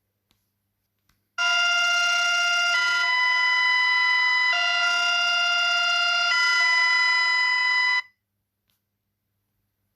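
Emergency alert system alarm tone: a loud electronic chord that alternates between two pitches roughly every two seconds. It starts about a second and a half in, runs for about six and a half seconds, and cuts off suddenly.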